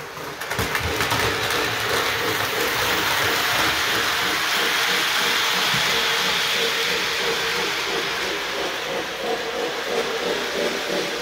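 O scale model train running on the layout track: a steady rushing noise with a low hum underneath, building up over the first second.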